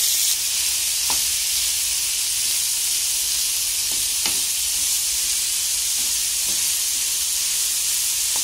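Pork pieces frying in hot oil in a nonstick pan: a steady high sizzle. A few light taps and scrapes of a wooden spatula stir them.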